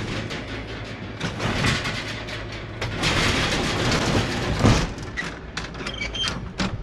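Class A motorhome engine running with a steady low drone, under road noise and cabin rattles, with one sharper knock about two thirds of the way through.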